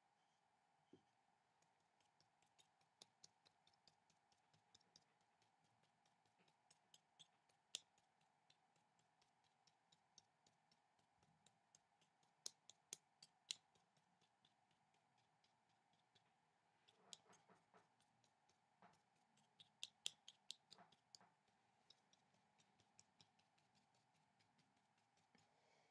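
Near silence with faint, irregular light ticks: a paintbrush dabbing on paper, the taps bunching into quick runs around the middle and again later on.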